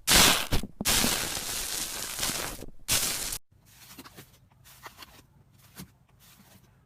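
Slime being squeezed and worked by hand close to the microphone, making a loud, dense crackling noise in several long squeezes with short breaks. About three and a half seconds in it stops suddenly, leaving only faint scattered clicks and pops.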